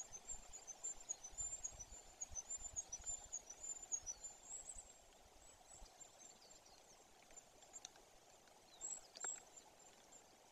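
Faint twittering of small songbirds: a quick run of thin, very high chirps over the first five seconds and a few more about nine seconds in. Low rumbles, as of wind on the microphone, sit under the first half.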